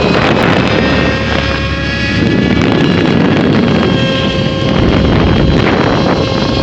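Motor scooter engine running loudly through an exhaust tuned to sound like a sports bike, with wind buffeting the microphone.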